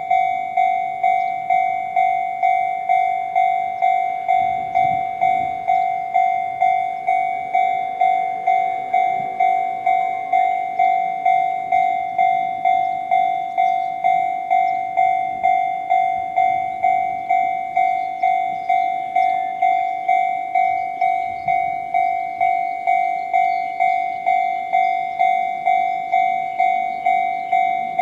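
Japanese railway level-crossing alarm ringing the 'Chichibu sound' used at Chichibu Railway crossings: one bright electronic bell tone, struck evenly a little under twice a second, signalling that a train is approaching or passing.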